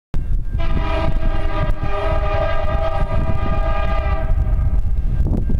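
Air horn of the lead diesel locomotive, a BNSF SD70MAC, sounding one long chord blast of about three and a half seconds, over a steady low rumble.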